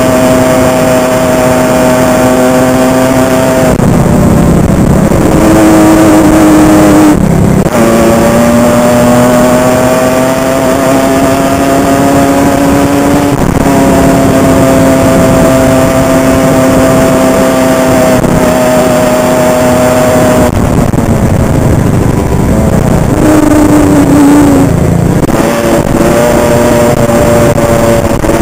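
Honda CR85 two-stroke single-cylinder dirt bike engine running hard under load while riding, its pitch climbing on the throttle and dropping sharply about four times as the throttle is chopped or a gear is changed.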